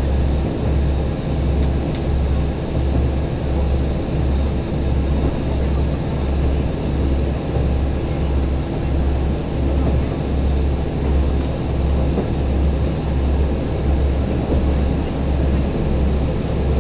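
Inside the cabin of a KiHa 185 diesel railcar running at speed: a low diesel engine drone with a regular throb, under a steady rush of wheel and track noise.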